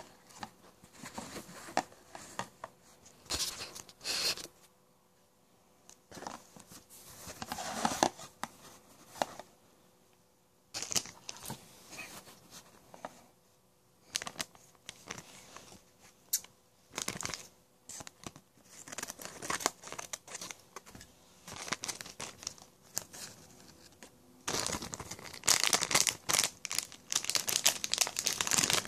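Plastic toy packaging being handled and crinkled in irregular bursts with short pauses, the crinkling densest and loudest near the end.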